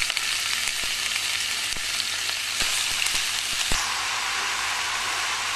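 Sliced oyster mushrooms sizzling steadily in hot butter and oil, just dropped into the pan, with a few sharp clicks over the frying hiss.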